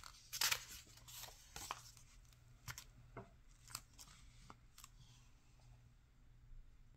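Faint rustling of paper as a picture book's page is turned, followed by a few scattered soft taps and clicks.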